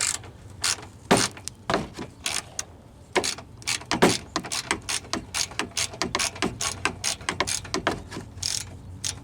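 Hand ratchet clicking in quick strokes, a few clicks a second, as screws holding a car's underbody splash shield are backed out.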